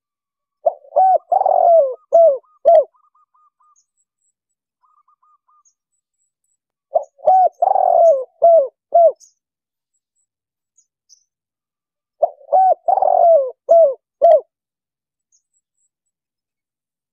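Spotted dove (tekukur) cooing: three phrases of about five coos each, one long note in the middle, repeated roughly every five to six seconds.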